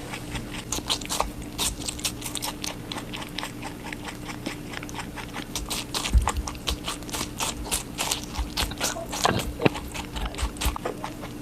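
A rabbit eating watermelon fast: a quick, continuous run of crunchy bites and chewing, several a second, over a faint steady hum.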